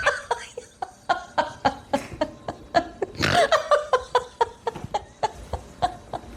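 A person laughing in a long run of short "ha" bursts, about three a second, growing louder about three seconds in and fading near the end.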